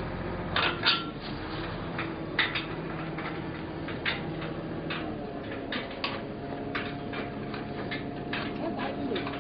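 Irregular clicks and knocks, a few a second, over a steady low hum, with two louder knocks in the first few seconds.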